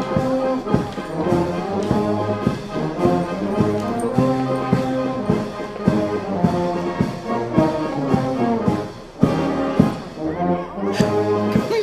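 Background music: a brass-led track with held notes over a steady beat.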